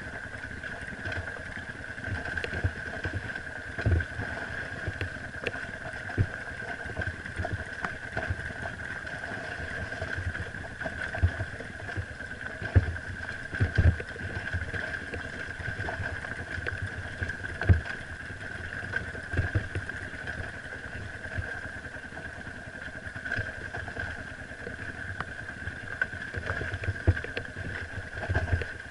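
Dirt bike engine running at low, fairly steady revs while riding up a rocky trail, with frequent short knocks as the bike jolts over the rocks.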